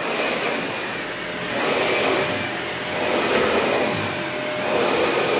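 Dyson bagless vacuum cleaner running with a steady whine, pushed back and forth over carpet so that its sound swells and eases about every second and a half.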